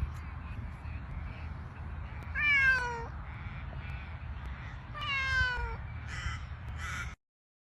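A domestic cat meowing twice, each meow falling in pitch, over a steady low hum; the sound cuts off suddenly near the end.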